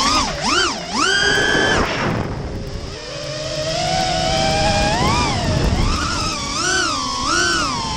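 FPV racing quadcopter's electric motors and propellers whining, the pitch surging and falling with the throttle. The whine is held high at full throttle about a second in, drops away sharply near two seconds, climbs slowly back, then wavers up and down rapidly through the rest.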